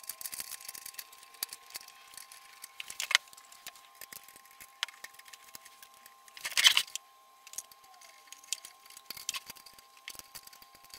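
Scattered small metal clicks and clinks as a pinless blade holder is handled and fitted into the lower arm of a scroll saw, with a louder knock about six and a half seconds in.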